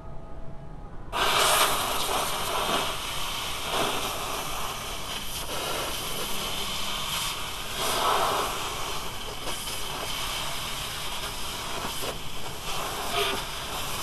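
Compressed air hissing from a blow gun with a long nozzle, blowing leftover coolant out of the thermostat opening to dry it. The hiss starts about a second in and rises and falls in strength.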